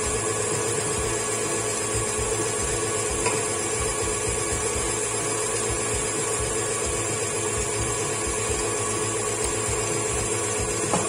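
KitchenAid stand mixer running steadily at medium speed, its wire whisk beating eggs and sugar in the steel bowl until they turn foamy.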